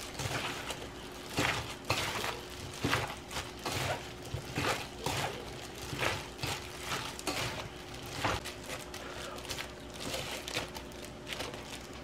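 Irregular light clicks, knocks and scrapes of kitchen work, about one or two a second, such as a spoon and utensils against a bowl while seasoning is mixed in. A faint steady hum runs underneath.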